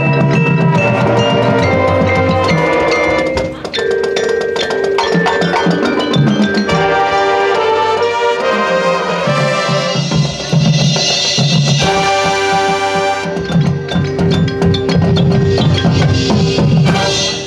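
High school marching band playing its field show: sustained wind and brass chords over front-ensemble mallet percussion and drums.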